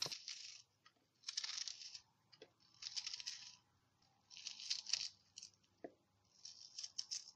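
Five short, crisp rustling scrapes, each under a second and about a second and a half apart, with a few light ticks between: kitchen handling of finely cut onion.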